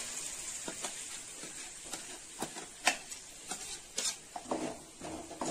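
Onions frying with a soft sizzle in an aluminium kadai while ground tomato paste is scraped out of a steel mixer jar with a spoon. Scattered sharp clinks of the spoon and jar against metal.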